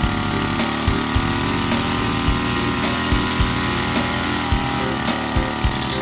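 Small engine of a grass-cutting machine running steadily while clearing a garden plot, with irregular short low thumps every half second or so.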